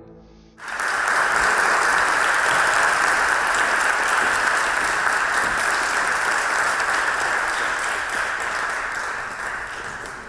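Audience applauding: it starts sharply about half a second in, holds steady, then tapers off near the end.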